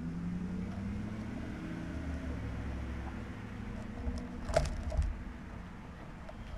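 A low steady rumble with a slowly wavering hum, then two sharp clicks about half a second apart, some four and a half seconds in.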